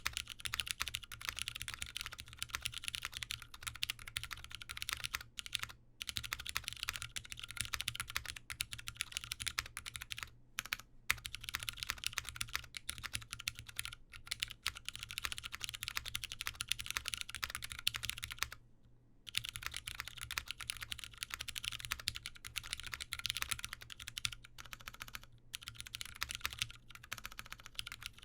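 Continuous fast typing on a mechanical keyboard with lubed Cherry MX Brown tactile switches on a POM plate and GMK keycaps, with a few short pauses and a longer break about two-thirds of the way through.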